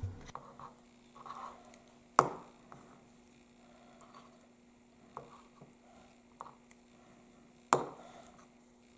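Small plastic alcohol ink bottles handled and set down on a hard tabletop: two sharp clicks, about two seconds in and near the end, with a few fainter taps and light rustling between, over a faint steady hum.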